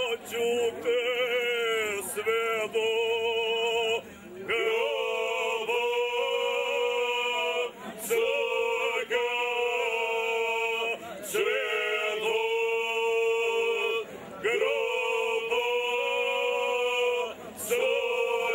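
Men's ojkača group singing unaccompanied in the traditional shaking-voice style: several male voices hold long, loud notes together, the pitch trembling and wavering, in phrases broken by short pauses every three to four seconds.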